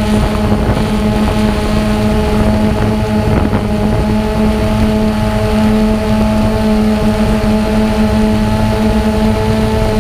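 Xiro Xplorer quadcopter's motors and propellers running with a steady hum of several held tones, with wind rumbling on the microphone.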